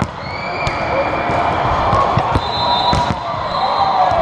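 Volleyballs being spiked and bouncing on a hardwood gym floor: a string of sharp smacks every half second or so, over steady chatter from players and spectators in a large hall.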